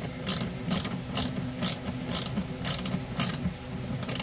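Hand ratchet wrench clicking in short bursts, about two a second, as it is swung back and forth to tighten the nut on a battery cable terminal.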